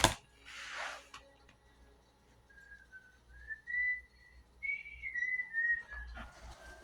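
A person whistling a short tune of a few wavering notes that rise and fall. A sharp knock comes at the very start, and brief hissy noises come about a second in and near the end.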